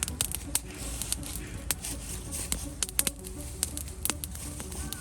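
Wood campfire crackling: irregular sharp pops and snaps, a few a second, over a soft hiss.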